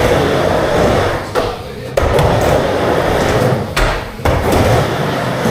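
Skateboard wheels rolling on a hard surface, with sharp clacks of the board striking or landing about two seconds in and again just after four seconds.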